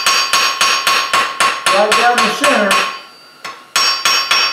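Forging hammer striking a hot mild-steel leaf on a JHM Shaper anvil in quick, even blows, about three or four a second, each with a metallic ring. The blows are planishing: they smooth out the hammer marks and, with the hammer tilted, raise a ridge down the centre of the leaf. The hammering breaks off for under a second about three seconds in, then resumes.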